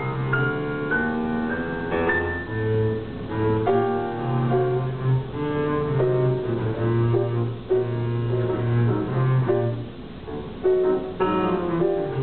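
Double bass played with a bow in long held notes, with a grand piano accompanying.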